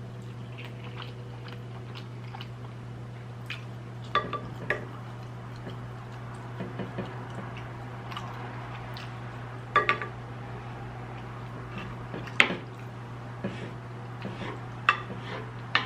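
A utensil clinking against a plate during a meal, with sharp clicks every few seconds, the loudest about four, ten and twelve seconds in, over a steady low hum.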